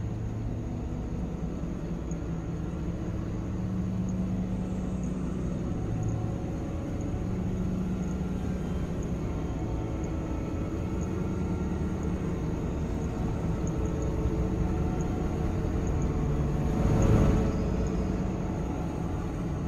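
A steady low rumbling drone with faint held low tones, swelling into a brief rush of noise about 17 seconds in.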